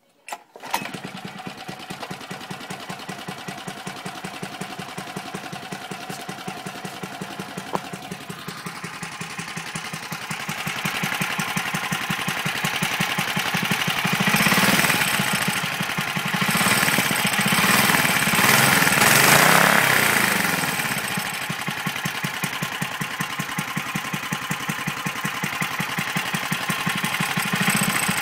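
Kawasaki FA210D 5 hp single-cylinder four-stroke engine, just rebuilt, catching within a second on a warm start and settling into a steady idle. From about ten seconds in, its speed rises and wavers as the throttle is worked at the carburetor, then it drops back to an even idle for the last several seconds.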